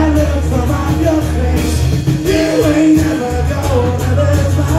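A man singing live into a microphone over amplified rock-style band music with a steady bass line.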